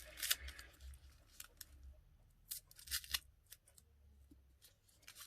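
A small package is being opened by hand, with scattered short snips, clicks and crinkles of its wrapping.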